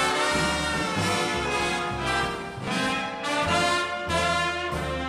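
Brass-led band music, trumpets and trombones carrying the tune over a bass line that moves from note to note.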